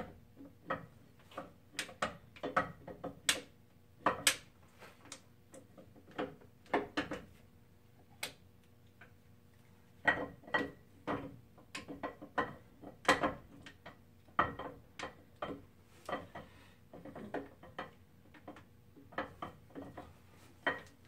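Steel camshaft of a Ford 272 Y-block V8 being slid and turned by hand into its bearing bore: irregular sharp metallic clicks and clunks as the lobes and journals knock against the cam bearings. The clicks come a few per second, thin out for a few seconds near the middle, then pick up again.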